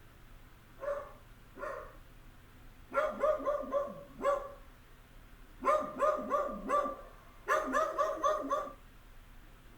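An animal calling: two single short calls, then three quick runs of five or six pitched calls each.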